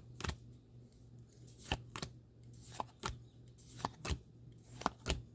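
Pokémon trading cards being flipped over one by one from an opened pack: short, irregular card swishes and snaps, several a second at times.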